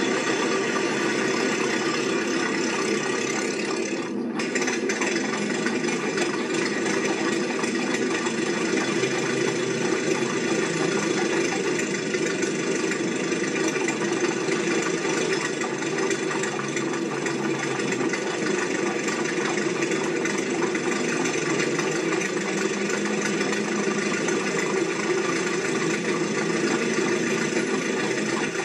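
An engine running steadily with a rattle, with no clear change apart from a brief dip in the higher sound about four seconds in.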